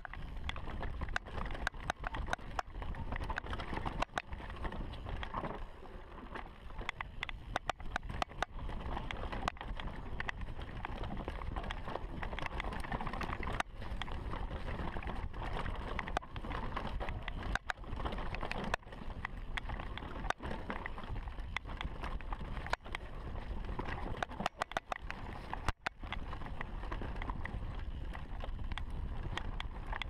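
2015 Giant Reign Advanced mountain bike descending a dirt singletrack at speed: tyres rolling over the trail with wind on the microphone, and frequent irregular sharp clicks and rattles.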